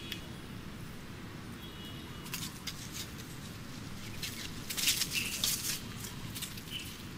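Long-tailed macaques scrambling and wrestling on gravel strewn with dry leaves: scattered rustling, scuffing and crackling of leaves, busiest about five seconds in, over a steady low background rumble.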